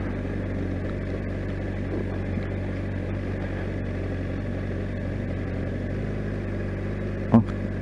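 Honda CBR600RR motorcycle's inline-four engine running steadily at low revs as the bike rolls slowly.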